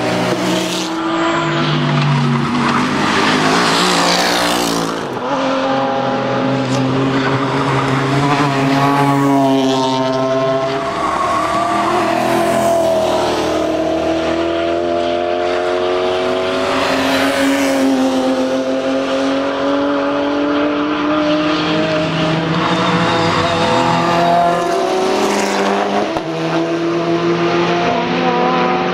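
Several race cars passing one after another through a corner, their engine notes overlapping and sliding up and down in pitch as they brake, shift and accelerate away.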